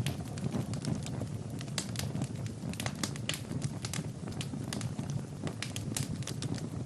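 Wood fire burning in a fireplace, crackling with frequent irregular sharp pops over a steady low noise of the flames.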